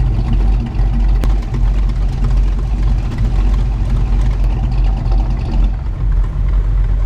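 Old American car's engine running steadily at low speed while cruising, a deep even rumble, with a single sharp click about a second in.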